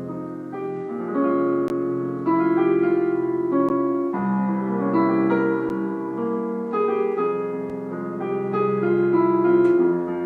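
Live instrumental Brazilian jazz from a small ensemble: piano-like chords and a melody ringing out over held bass notes.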